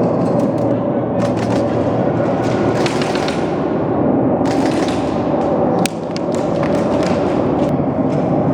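Airsoft guns firing in several short bursts of rapid sharp shots over a dense, loud, steady background noise.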